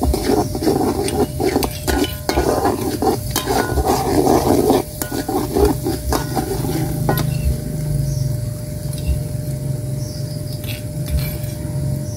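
Metal spatula scraping and stirring spice paste as it sizzles in hot oil in a wok. The quick stirring strokes die away about seven seconds in, leaving the steady frying sound.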